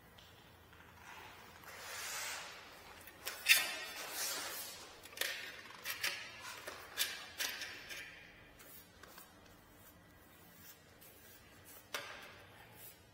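Paintbrush stroking paint onto a baseboard: a run of short swishing brush strokes with a few sharper clicks, then a quiet stretch and one sharp click near the end.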